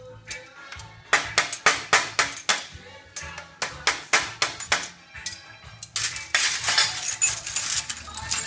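Thin glass canes snapping as a steel blade chops them into short pieces on a cutting jig: a quick run of sharp cracks. From about six seconds in, a denser jingle of the cut glass pieces clinking together as they are gathered.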